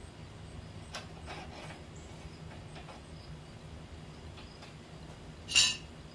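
Steel angle iron being shifted by hand on wooden sawhorses: a few light knocks, then one short, loud metallic scrape-clank about five and a half seconds in, over a steady low hum.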